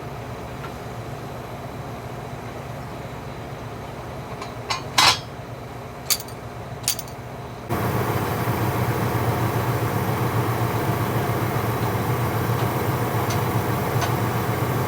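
Engine running steadily with a few sharp metal clinks about five to seven seconds in; a little past halfway it cuts abruptly to a louder, steady engine sound with a rushing, air-like noise over it.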